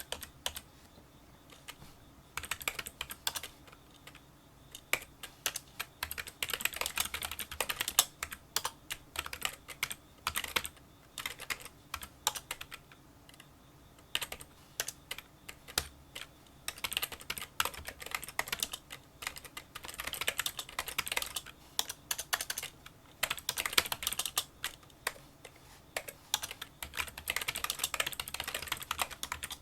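Typing on a Kinesis Freestyle Solo split keyboard with membrane key switches: fast runs of small clicks in bursts, broken by brief pauses. The clicks are fairly quiet for a membrane keyboard.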